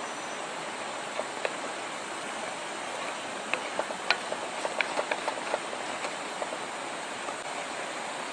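Chicken in soy and oyster sauce sizzling and bubbling in the pan as it cooks down, a steady hiss with a run of sharp pops near the middle.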